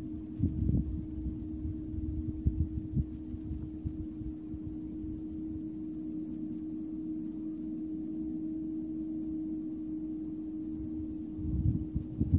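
Steady hum of a Case IH 2388 combine harvester working in the field, heard from a distance. Low gusts of wind buffet the microphone, most at the start and again near the end.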